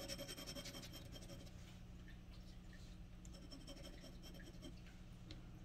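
Glass dip pen nib scratching faintly across a paper swatch card in quick back-and-forth scribbling strokes.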